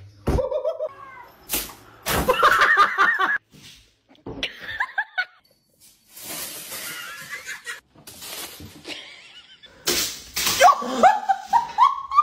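People laughing in several separate bursts, broken by abrupt cuts, with a run of quick repeated laughs about two seconds in.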